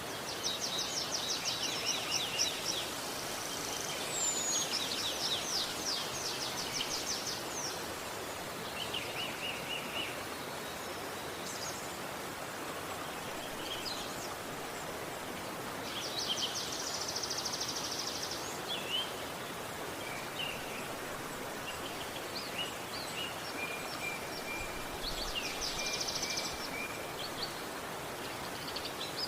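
Steady rush of a flowing river, with birds singing rapid trilled phrases over it several times and a few short chirps in between.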